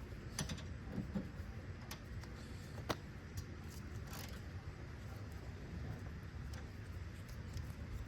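Scattered light metallic clicks and taps of a hand tool working the headlight assembly's mounting bolt, over a steady low hum.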